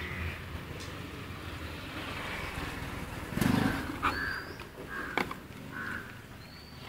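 Crows cawing a few short times in the second half. About halfway through there is a brief louder rustle and knock of something being handled.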